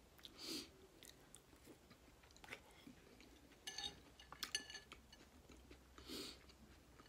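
Faint chewing and mouth sounds of a person eating boiled eggs and potatoes in butter sauce. A metal utensil clinks against a glass bowl a few times around the middle.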